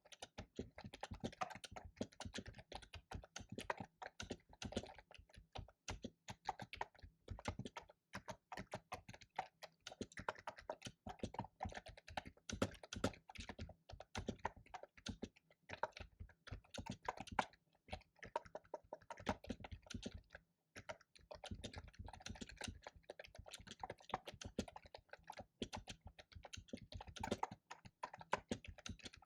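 Fast, continuous typing on a loud computer keyboard, a dense run of irregular key clicks broken by brief pauses a few times.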